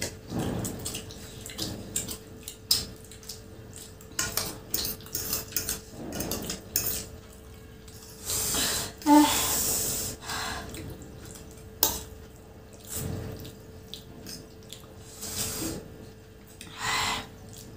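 Two people eating chow mein close to the microphone: forks clicking and scraping on plates, with wet slurping and chewing of noodles that comes in short bursts.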